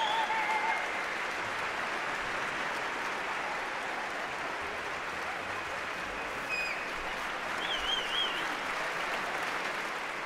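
A concert-hall audience applauding steadily, with a short warbling whistle about eight seconds in.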